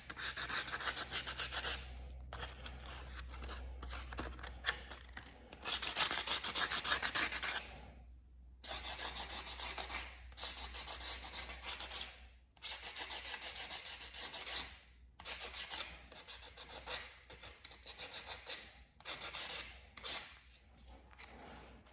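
Hand sanding a car door handle with sandpaper: quick rasping strokes in spells of a couple of seconds, with short pauses between.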